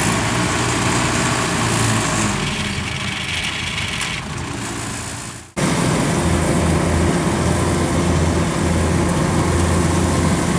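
Engine of a small rice-hauling cart running steadily. About five and a half seconds in, the sound cuts abruptly to a Kubota DC-93 combine harvester's diesel engine running under load as it harvests rice, with a steady low hum.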